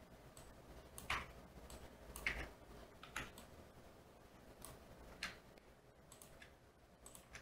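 Faint, irregular clicks of a computer keyboard being used to edit code, about half a dozen spread over several seconds against near silence.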